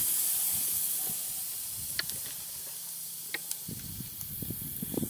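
Hamburger patty sizzling on a small charcoal grill: a steady hiss that fades away over the first couple of seconds, followed by a few faint ticks.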